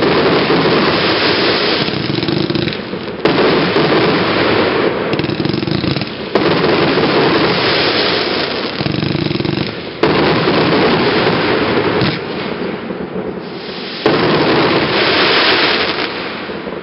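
Aerial fireworks from a single-fuse consumer display set: continuous loud, dense crackling from glittering crackle-star bursts, with the sound changing abruptly every three or four seconds as new shots fire.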